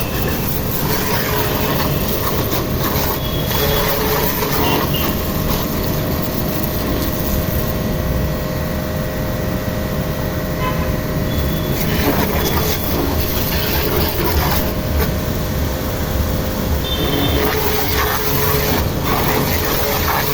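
AIMEX D7 Plus 2200-watt electric high-pressure washer running steadily, a dense, constant machine-and-water noise with a faint steady whine.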